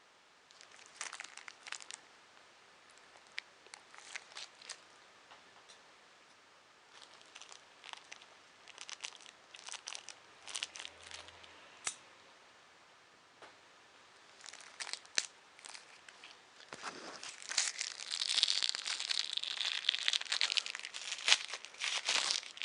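Packaging being handled and crinkled, with scattered crackles and clicks at first, then a denser, louder stretch of crinkling over the last five seconds or so.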